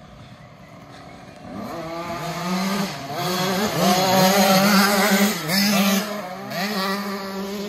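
Two 50cc two-stroke kids' dirt bikes, a KTM SX50 and a Husqvarna TC50, coming in about a second and a half in and passing close by. Their engines rev up and down with the throttle, loudest around the middle as they go past.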